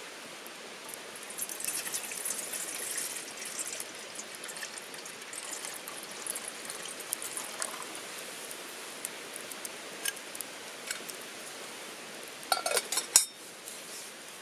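Liquid being poured, with small clinks of camp cookware and a quick run of sharp clinks near the end, the last one the loudest.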